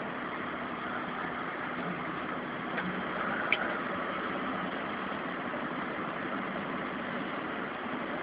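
Backhoe loader's diesel engine running steadily, with two brief sharp knocks about three and three and a half seconds in.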